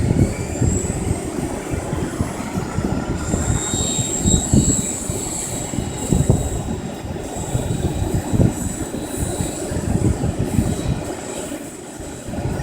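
GAUI Hurricane 550 radio-controlled helicopter flying: a thin, high steady motor whine that now and then rises in pitch, over a heavy, gusting low rumble from the rotor.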